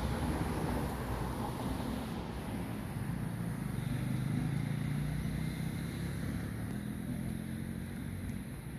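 A motor vehicle's engine hum over a steady outdoor background hiss, a little louder around the middle.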